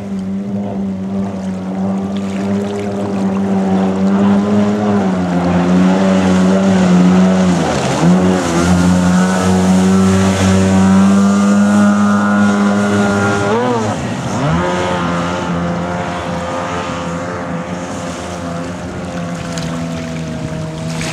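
Mini jet boat powered by a Kawasaki 550 jet ski's two-stroke engine, running at high revs and growing louder as it passes close, with the hiss of its spray. Twice, about eight seconds in and again about fourteen seconds in, the revs drop sharply and climb straight back.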